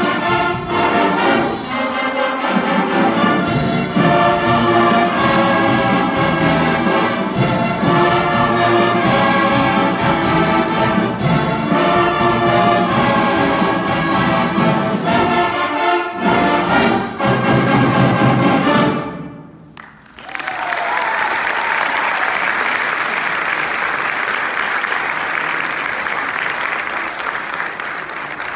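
A band playing a piece through to its final chord about two-thirds of the way in, then audience applause that fades away near the end.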